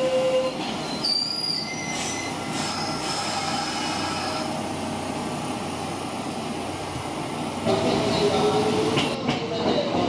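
Kintetsu red-and-white electric express train running close past a platform, its wheels and running gear rumbling, with thin high wheel squeals in the first few seconds. About three-quarters of the way in it gets louder and a rising whine comes in.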